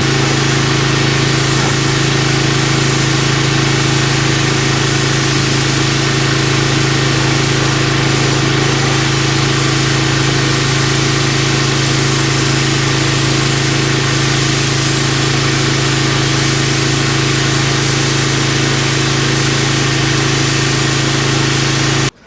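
Engine running at a steady, unchanging speed with a steady hiss over it, cutting off suddenly near the end.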